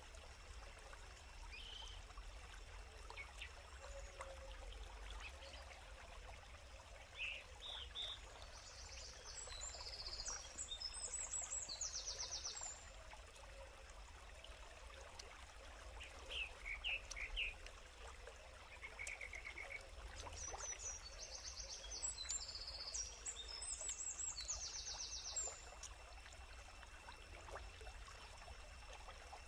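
Forest birds singing over the faint hiss of a running stream. A phrase of high notes ending in fast trills sounds twice, about ten seconds in and again about twenty seconds in, with shorter chirps between.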